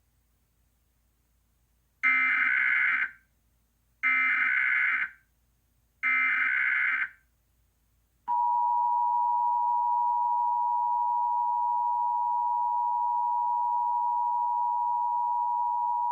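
Emergency Alert System SAME header: three short bursts of warbling digital data tones, each about a second long and two seconds apart. Then, about eight seconds in, the EAS attention signal starts: a steady two-tone 853 and 960 Hz beep that holds for about eight seconds. Together they announce the start of an emergency alert, here the National Periodic Test.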